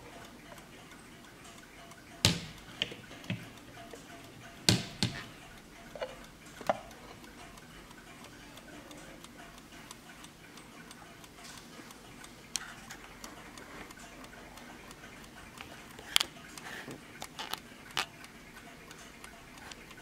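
Sharp, irregular clicks and knocks as the wooden case of a Warmink mantel clock is handled and its back door opened, with the clock's movement ticking underneath.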